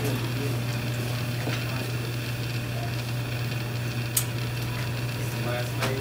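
Steady background hiss with a constant low electrical hum, and one faint click about four seconds in.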